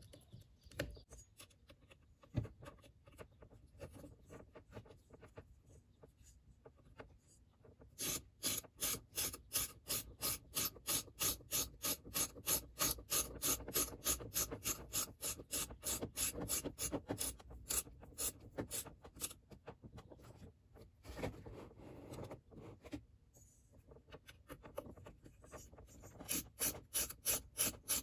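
Small ratchet wrench clicking in quick, even back-and-forth strokes as a screw on the RC buggy's shock tower is tightened, starting about a third of the way in, pausing briefly and starting again near the end. Before it come quieter handling sounds of fingers on plastic and metal parts.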